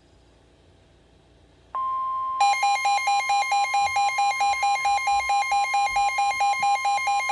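Emergency Alert System attention signal for a severe thunderstorm warning: a steady electronic tone starts about two seconds in, and half a second later a second, pulsing tone joins it, beating several times a second.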